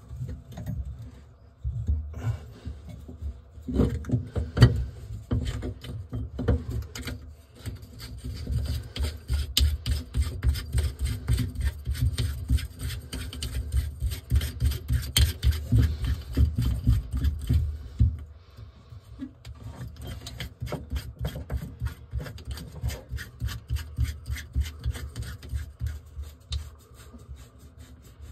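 Hands rubbing a rag over a chrome sink pop-up drain and tailpiece and twisting it into place: fast, rough rubbing and scraping strokes with handling knocks, easing off about two-thirds through.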